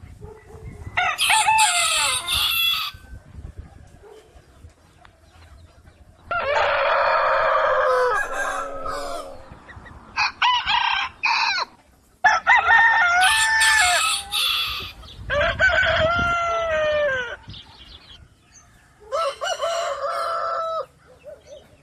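Roosters crowing: six loud crows of one to three seconds each, with short pauses between them.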